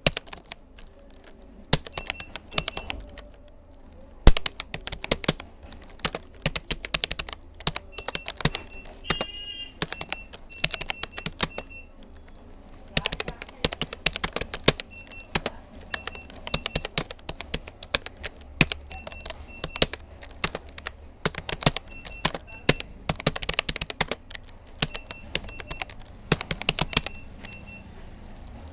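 Keystrokes on a Rapoo computer keyboard: irregular runs of fast key clicks with short pauses between them, as at a steady typing pace of about 33 words per minute.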